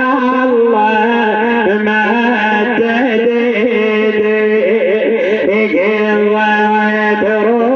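A man's voice singing a wordless, melismatic mourning lament, its pitch winding up and down over a steady held drone note.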